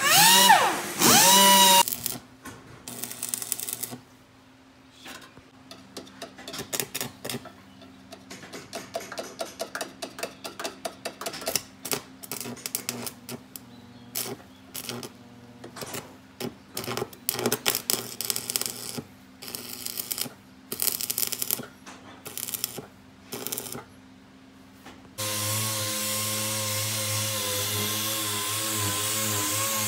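Handheld power tool working on fibreglass (FRP) parts, its whine falling away in the first two seconds; then a long stretch of irregular clicks and light taps from hand work; about 25 seconds in, a power tool starts again and runs steadily with a whine and a low drone.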